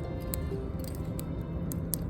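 Background music over a low steady rumble, with scattered sharp crackles from a burning wood fire.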